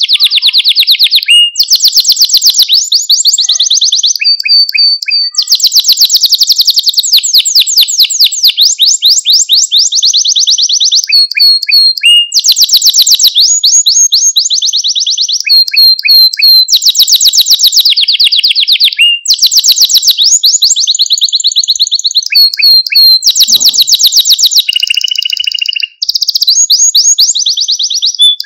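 Male domestic canary singing: long, loud phrases of rapid trills made of repeated high notes, with the note type changing from phrase to phrase and short breaks between phrases.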